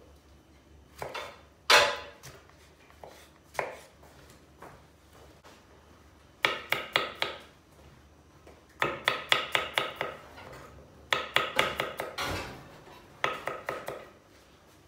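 Small knife chopping garlic cloves on a wooden cutting board. A few single knocks come first, then four quick runs of rapid strokes, several a second, in the second half.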